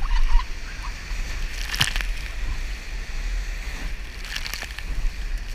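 Sea water sloshing and splashing against the bow of a Gemini GRX420 inflatable rescue boat as it punches out through surf, over a steady rumble of wind on the microphone. Two sharper splashes stand out, about two seconds in and again about four and a half seconds in.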